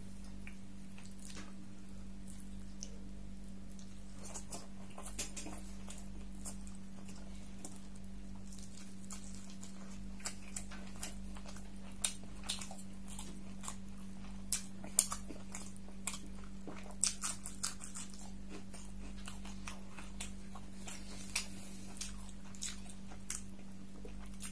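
Close-miked eating sounds: paratha torn by hand and chewed with beef curry, giving scattered sharp wet clicks that grow more frequent and louder about halfway through, over a steady low hum.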